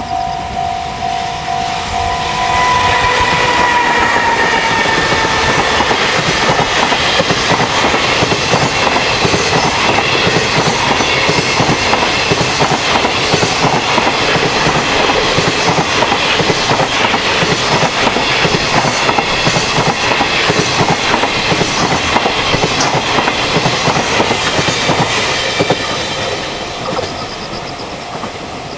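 A level-crossing warning bell rings in a steady pulsing beat, then a long train passes over the crossing for about twenty seconds, its wheels clattering over the rail joints. A pitched tone falls in pitch as the train arrives. The noise fades near the end.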